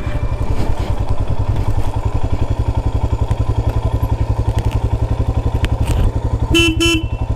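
Motorcycle engine running at low speed with an even, steady pulse as the bike rolls slowly over a dirt track. Near the end a short two-part tone, like a horn beep, sounds briefly.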